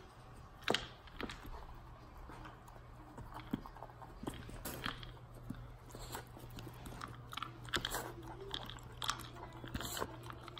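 Australian Shepherd puppy eating from a bowl, with irregular crunching and chewing as it bites through its food.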